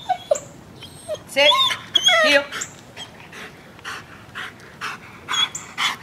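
German shepherd whining in two high, wavering cries, then panting in quick breaths while walking at heel.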